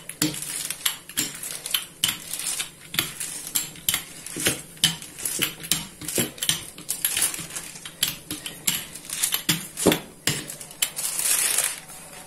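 Wooden rolling pin rolling back and forth over dough pressed between sheets of baking paper, giving many irregular clicks and knocks with paper crinkling under it. Near the end comes a longer rustle as the top sheet of baking paper is peeled back.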